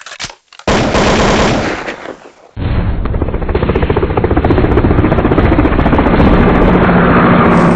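Helicopter rotor chopping in a fast, even pulse, loud throughout, with a sudden break and restart about two and a half seconds in.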